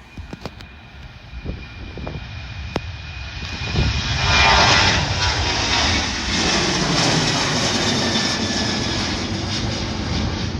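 Ryanair jet airliner's engines passing close by, swelling in suddenly about four seconds in and staying loud. A few sharp clicks come before it.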